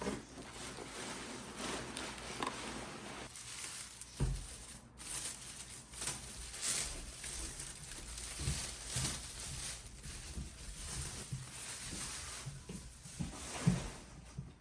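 A shipping package being opened and handled: rustling, crinkling and tearing of packaging, with scattered light knocks.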